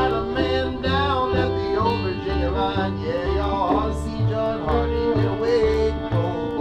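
Old-time string band playing: a gourd banjo and fiddle over an upright bass that plucks about two notes a second.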